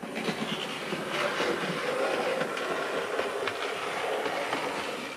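Electric model train running along the layout track: a steady rolling noise with many small clicks from the wheels on the rails. It is picked up by the Panasonic TZ90 compact camera's built-in microphone.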